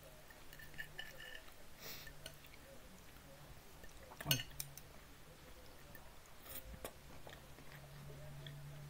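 Chewing and soft eating noises close to the microphone as chicken nuggets and wedge potatoes are eaten, with scattered small clicks and one sharper click about four seconds in, over a low steady hum.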